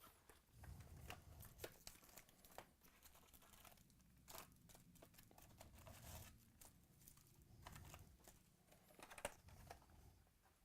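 Faint crinkling and scattered light clicks of Topps Chrome card packs and cards being handled and sorted.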